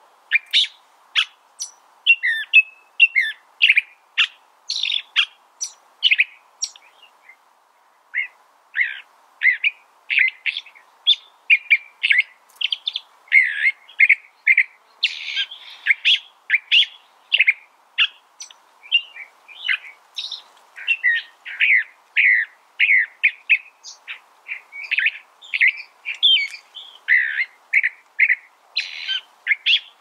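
California thrasher singing: a long, continuous run of short, varied phrases, two or three a second, with a brief pause about eight seconds in.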